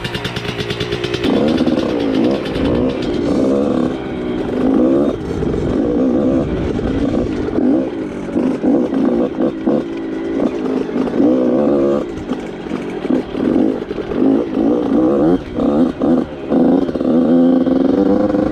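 Yamaha YZ85 two-stroke engine revving up and down under way on a rough dirt trail, its pitch rising and falling as the throttle is opened and rolled off, with frequent brief throttle chops in the second half.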